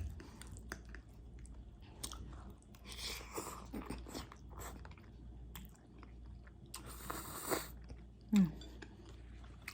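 Close-miked chewing of spaghetti with meat sauce: soft wet mouth sounds with small clicks and smacks, and a short hissing burst about seven seconds in.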